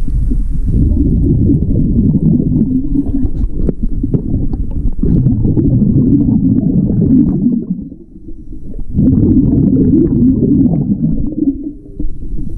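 Scuba regulator exhaust bubbles heard underwater as the diver exhales: a loud, low bubbling in long surges, with a short lull about eight seconds in and another near the end where he breathes in.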